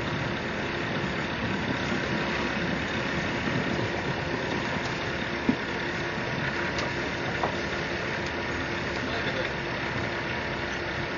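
An engine running steadily with a low, even hum, and a couple of faint clicks about halfway through.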